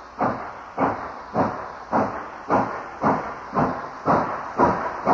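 Delaware & Hudson K62 class 4-8-4 Northern steam locomotive working steam, with sharp exhaust chuffs about twice a second that come slightly faster as it goes. This is the locomotive accelerating its passenger train away from the station.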